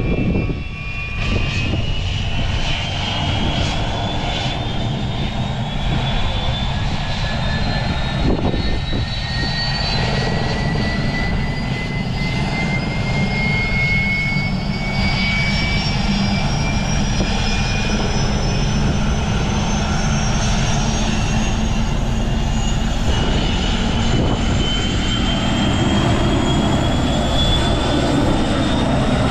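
RAF Puma helicopter's twin turbine engines running, with a steady low rumble under a high whine that climbs slowly and steadily in pitch, as the turbines speed up.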